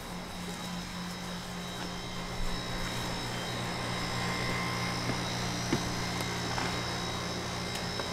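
Steady mechanical hum of an outdoor air-conditioning condenser unit running, its compressor and fan holding a constant drone, with a couple of faint ticks.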